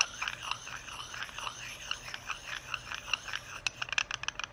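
Dry sharpening stone rocked back and forth on a steel Buell Blast shift drum, scraping in short strokes about three a second; from about three and a half seconds in it turns into a quick run of sharp clicks. The scraping and clicking is the stone catching on a raised burr, which the owner takes as the sign of a bad burr on the drum.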